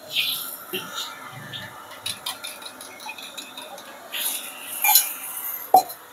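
Eggs poured into hot oil in a steel wok, sizzling in hissing bursts, with clinks of a metal spoon and mug against the wok. The loudest hiss comes about four seconds in, and a single sharp metal knock follows near the end.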